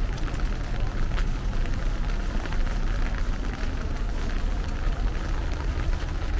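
Steady rain falling, with many small drops ticking close by, over a steady low rumble.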